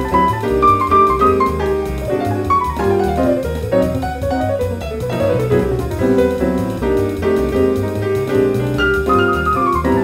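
Grand piano playing jazz, chords over a moving bass line, with quick falling runs about three seconds in, about five seconds in, and again near the end.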